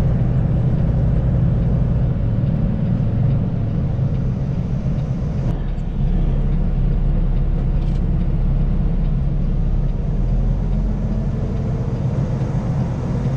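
Semi truck's diesel engine running steadily with road rumble, a faint tone rising slowly near the end.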